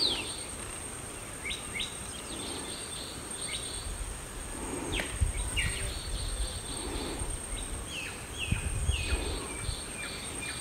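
Birds calling outdoors: many short whistled notes that slide down in pitch, scattered at first and coming thicker in the second half, over a steady thin high-pitched whine and a low rumble of wind.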